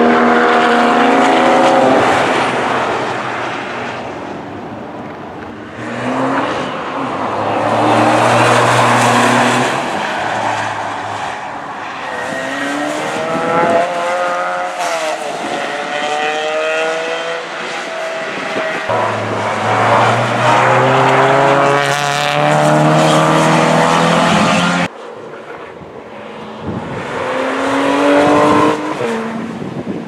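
Porsche 911 race cars passing one after another, their flat-six engines rising and falling in pitch as they brake, shift and accelerate. The sound drops abruptly about 25 seconds in.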